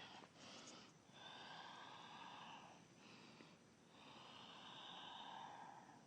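Faint, slow breathing of a person holding a yoga pose: two long breaths of about two seconds each, with a shorter, quieter one at the start.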